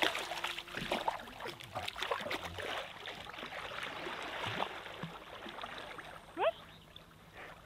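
Water splashing and sloshing as a person wades and a dog swims through shallow, reedy lake water; the splashes come thick at first and thin out in the second half. A short rising squeak stands out about six and a half seconds in.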